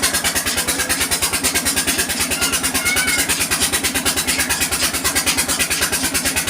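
An engine idling with a steady, rapid beat of about ten pulses a second.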